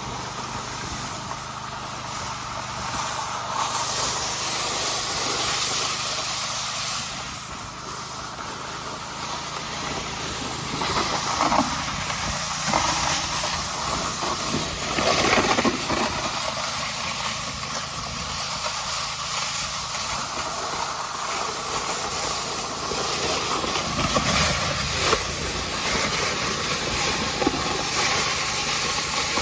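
A vehicle driving, with a steady rushing hiss over a low engine hum that swells now and then.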